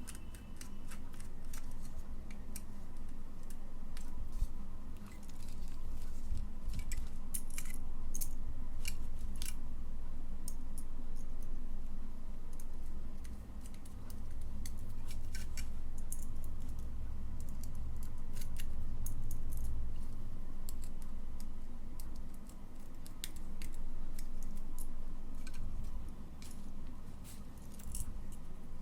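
Scattered sharp clicks and snips of hand tools and wire being worked into switch terminals while the circuit is wired up, over a low rumble of handling noise.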